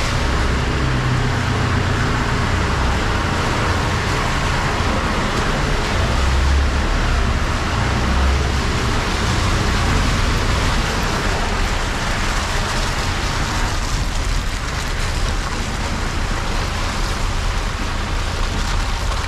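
Off-road vehicle driving over a wet, muddy track: a steady engine rumble with tyre and road noise. The low rumble is strongest in the first half and eases after about ten seconds.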